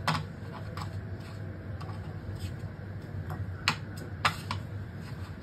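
Hands handling crab pieces while coating them in rice flour on a plate: faint scraping and light ticks, with a sharp click at the start and two louder clicks about half a second apart after three and a half seconds, as the crab shells knock against the plate. A low hum runs underneath.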